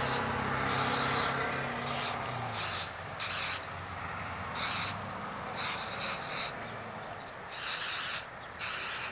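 Aerosol can of white spray paint hissing in about ten short bursts as a facemask is sprayed. A low steady hum fades out in the first couple of seconds.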